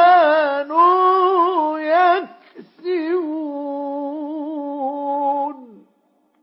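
A man reciting the Quran in the melodic mujawwad style: two sung phrases with a short break between them, the second drawn out into a long, wavering held note that fades away about six seconds in.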